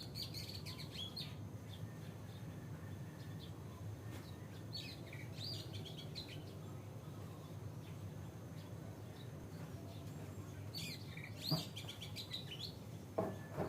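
Oriental magpie-robin singing short phrases of quick gliding whistles and chirps, a few seconds apart, over a steady low hum. Two sharp knocks near the end are the loudest sounds.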